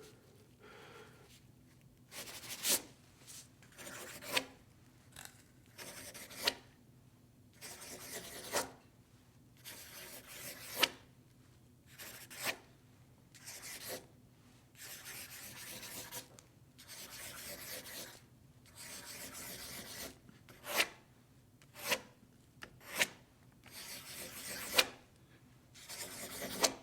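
A pen writing on paper: scratchy strokes in bursts of one to two seconds with short pauses between. Many strokes end in a sharp tick.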